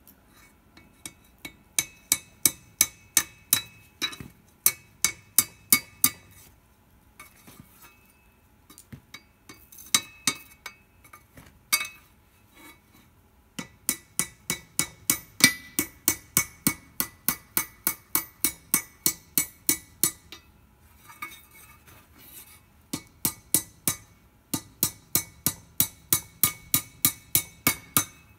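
Blacksmith's hammer striking a red-hot steel rod on an anvil, with a bright metallic ring on each blow. The blows come in runs of steady strikes, about three a second, with short pauses between runs.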